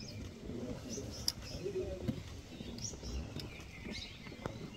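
Wild birds calling: a short high call repeats about once a second over softer, lower notes. A single sharp click comes about a second in.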